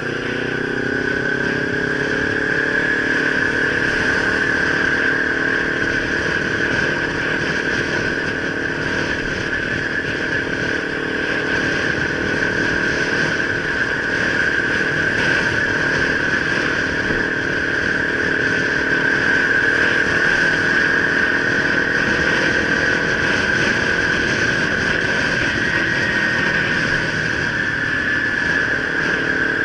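Kawasaki Ninja 300's parallel-twin engine, heard from on board while riding. It rises in pitch over the first few seconds as the bike accelerates, then runs steadily at cruising speed.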